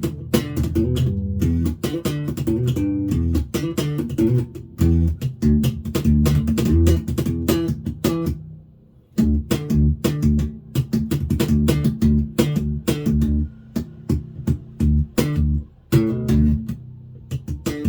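Five-string electric mini bass played through a Warwick BC10 bass amp: a busy run of plucked notes with sharp attacks. The playing breaks off briefly about eight and a half seconds in, then resumes.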